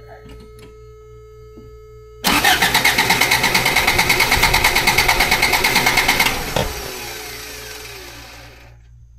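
A 1991 Toyota pickup's four-cylinder engine is cranked over by its starter without firing, ignition disabled, for a compression test on cylinder three, with an even rhythmic chug. The cranking starts a little over two seconds in and stops about four seconds later, followed by a fading wind-down.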